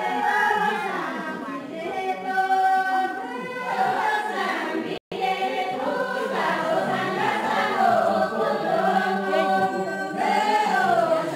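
A group of voices singing a traditional Kinnauri dance song together, unaccompanied. The sound cuts out for an instant about five seconds in.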